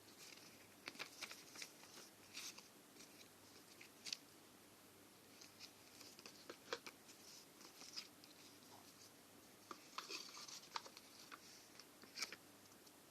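Faint, irregular clicks, taps and rustles of hands handling a smartphone and its packaging, coming in small clusters with short pauses between.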